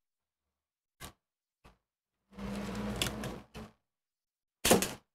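Hand-disassembly of a laptop: a few light clicks of plastic and metal parts, a steady whirring noise for about a second, and a louder clatter near the end.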